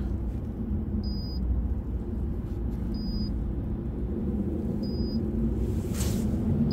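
Extech 380260 digital megohmmeter giving short high beeps about every two seconds while it applies about 1000 V to a compressor's windings for an insulation test, over a steady low rumble, with a brief knock near the end.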